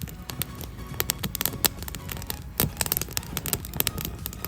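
Wood campfire crackling, with irregular sharp pops and a few louder snaps.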